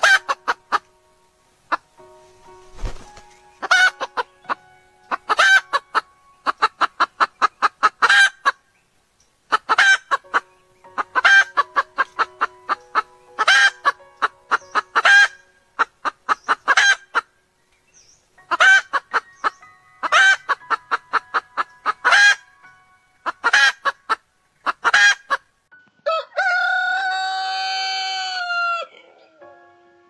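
A hen clucking in quick runs of short, sharp clucks, run after run. Near the end a rooster crows once, a drawn-out call of about three seconds.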